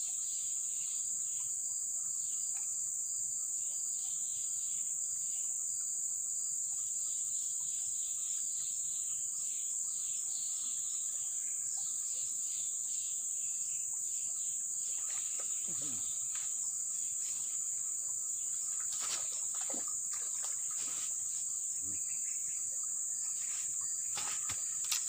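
A steady, high-pitched insect chorus, one unbroken drone. A few short knocks and rustles come in the second half.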